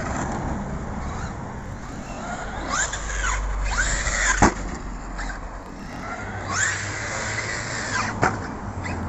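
Arrma Kraton 4S's brushless motor whining, revving up and back down in quick rising-and-falling sweeps as the truck takes its jumps. A sharp thud about four and a half seconds in and another near the end mark the truck's landings.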